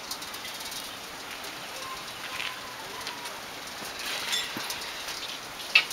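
Water splashing and dripping off a turning water wheel, many small splashes over a steady rush. A sharp knock near the end.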